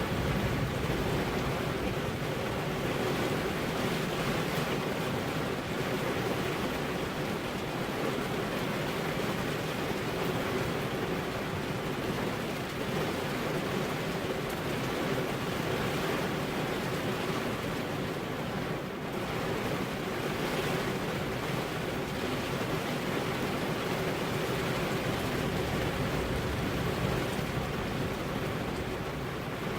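Steady rainfall, an even hiss that holds at the same level throughout.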